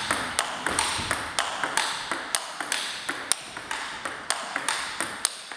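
Table tennis ball clicking off the table and the racket in a steady forehand topspin rally, about four knocks a second, each ringing briefly in a reverberant sports hall.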